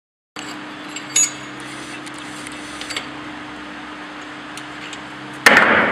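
Metal parts and tools clinking as a shuttleless wire mesh weaving loom is assembled by hand, over a steady workshop hum, with a sudden loud clatter near the end that fades slowly.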